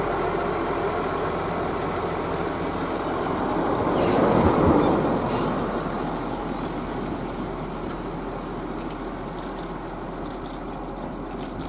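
Diesel railmotor set, railmotors 2032 and 2004, running past and pulling away with its engines running. It is loudest about four to five seconds in as the cars go by, then fades steadily as the train draws away. A few faint ticks come near the end.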